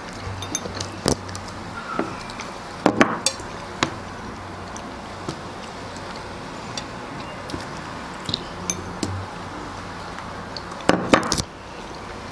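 Scattered clinks and taps of cherries being picked from a dish over a glass bowl and eaten, with two louder bursts of clatter, about three seconds in and near the end.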